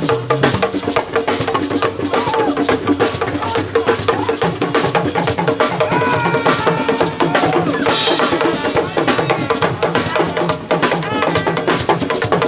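Live band music driven by fast hand drumming on congas, with sharp wood-block-like clicks over a steady bass line.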